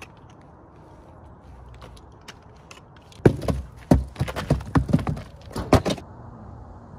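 A quick, uneven run of loud thumps and knocks for about three seconds, starting about three seconds in, after a stretch of low background noise.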